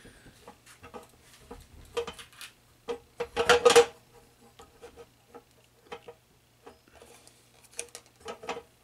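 Metal clicking and clattering of a chrome wire pot-support grate being handled and fitted onto a single-burner propane stove top, with a louder rattle about three and a half seconds in.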